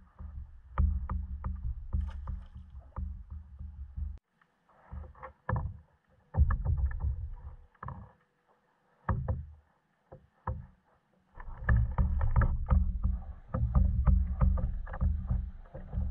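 Small waves slapping and lapping against a fishing kayak's hull in irregular splashes, with wind rumbling on the microphone in gusts that drop out twice and return near the end.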